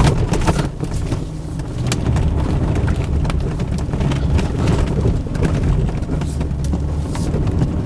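Fiat Fullback pickup's 2.4-litre diesel engine pulling at full throttle through deep sand, a steady low drone with scattered clicks and crackles over it.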